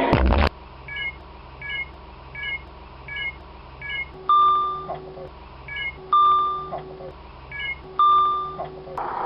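Electronic beeps and chimes: five short high chirps about three-quarters of a second apart, then three longer chime tones about two seconds apart, each ending with a drop in pitch, like a doorbell or alert tone.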